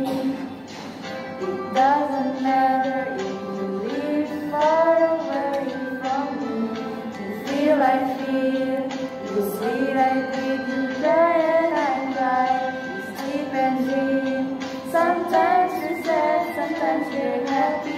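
Music: a woman's high voice singing a melody, gliding between notes, over held accompanying notes.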